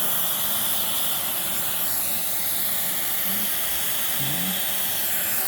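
Steady airy hiss from running equipment, with a faint low hum beneath it.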